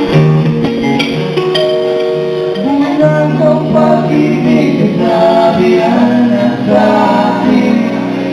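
Live band playing a song's opening, with held, wordless sung notes over the instruments.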